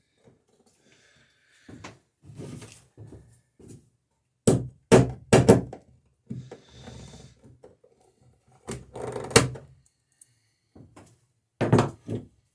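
Hammer blows riveting the planking strakes of a wooden dory: sharp knocks in clusters, four in quick succession about halfway in, more a few seconds later and again near the end, with quieter knocks between.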